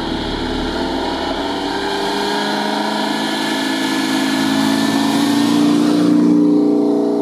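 Classic car engine running under acceleration, its pitch rising slightly and the sound growing louder toward the end.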